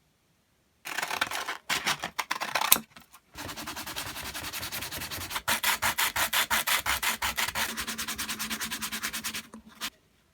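Abrasive rubbing strokes, back and forth by hand: a short burst of strokes about a second in, a brief pause, then a longer steady run at about six strokes a second that cuts off near the end.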